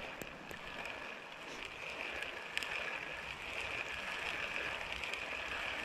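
River water running, a steady even rush, with a couple of faint clicks.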